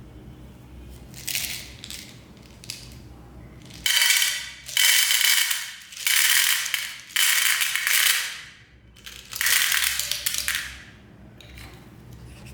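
Candy packaging handled close to the microphone: a few light crackles, then about five loud, hissy bursts of plastic crinkling and rustling, each under a second long.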